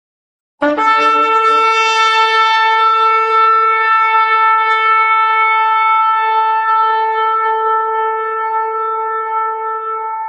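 Shofar blown in one long steady blast that starts abruptly about half a second in and holds a single pitch, weakening slightly near the end.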